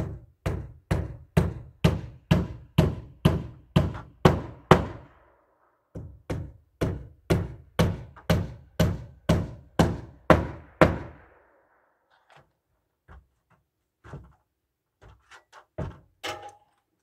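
A hammer driving nails into wooden gable framing: two steady runs of about a dozen blows each, roughly two a second, with a short pause between. A few lighter scattered knocks follow.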